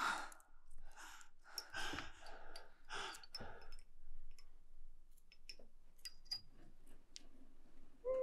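A woman's heavy sighing breaths, several in a row, then a few faint clicks of wooden tapers among glass votive candle holders. Right at the end a loud, drawn-out wailing cry begins.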